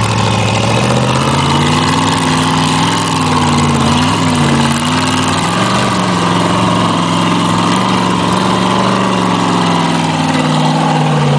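Red chain-drive rock-crawler buggy's engine working hard on a steep climb, its pitch rising and falling as the throttle is worked, with a quick dip and recovery about four seconds in and an easing-off near the end.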